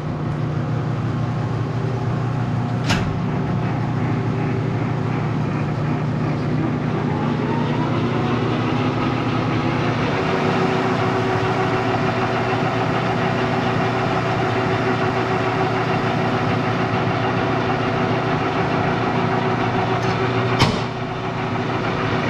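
Metal lathe running with a workpiece spinning in its chuck: a steady motor and gearhead hum whose tone shifts about ten seconds in. Sharp clicks sound about three seconds in and again near the end.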